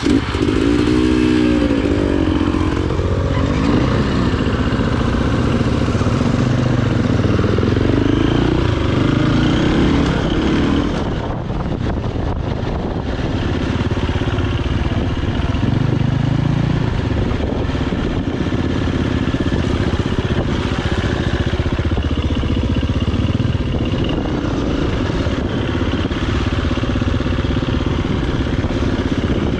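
Dirt bike engines running under throttle as the bikes ride an off-road trail, the engine note rising and falling as the riders accelerate and back off, strongest in the first few seconds as they pull away.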